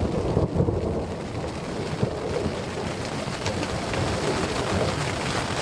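Distant thunder booming and rolling in a low, steady rumble, over the hiss of falling rain.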